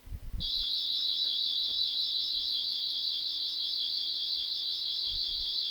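Toy sonic screwdriver's electronic sound effect: a steady, high-pitched warbling buzz that starts about half a second in.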